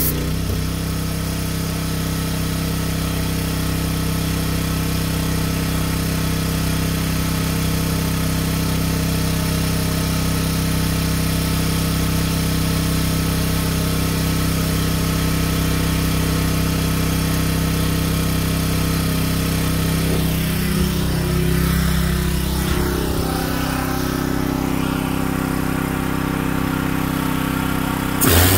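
Gas pressure washer engine running steadily with the spray gun's trigger released, its note wavering briefly about two-thirds of the way through. At the very end the trigger is pulled and the hiss of the high-pressure spray comes back in over the engine.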